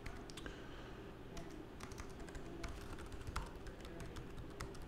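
Typing on a computer keyboard: a run of soft, irregularly spaced keystroke clicks.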